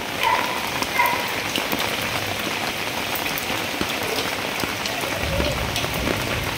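Steady rain falling onto floodwater, an even hiss of drops on the water's surface. A low rumble joins in near the end.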